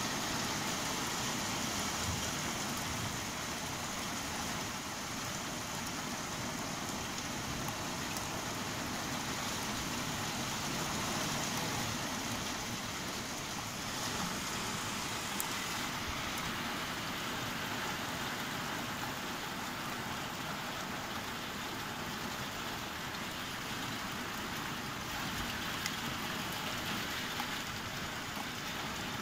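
Rain pouring steadily during a thunderstorm, an even hiss with no breaks.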